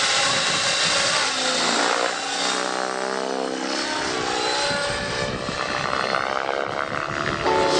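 Radio-controlled aerobatic helicopter flying. Its rotor and motor whine rises and falls in pitch as it manoeuvres.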